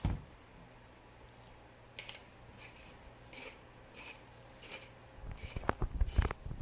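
Hand pepper grinder being twisted, a short gritty crunch about every two-thirds of a second as peppercorns are ground. A few louder knocks come near the end.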